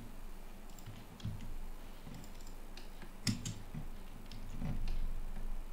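Computer keyboard keys and mouse clicks tapping now and then, with the sharpest click a little past three seconds in.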